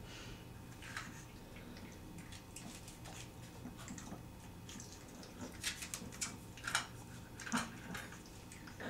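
Boston Terrier puppy eating dry food from a stainless steel bowl: faint, irregular clicks and crunches, coming thicker in the second half.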